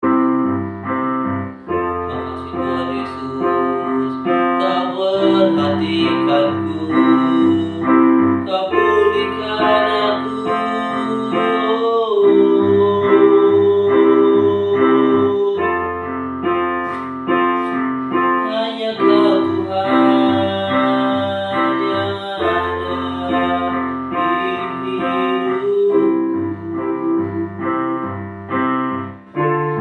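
Electronic keyboard in a piano voice playing slow, sustained chords over deep held bass notes that change every few seconds.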